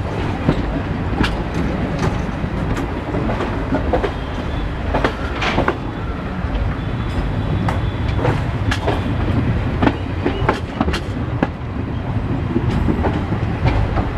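Passenger train coach running along the track, heard from its open door: a steady rumble of wheels and bogies with irregular sharp clicks as the wheels cross rail joints.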